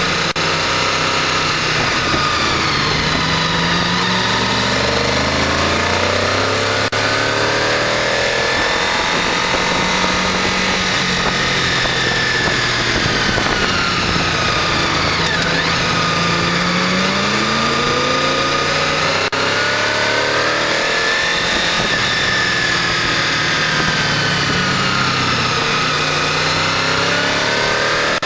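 A 1998 Honda VFR800's V4 engine, heard from on board while riding. Its revs rise and fall repeatedly through the bends, over steady wind noise.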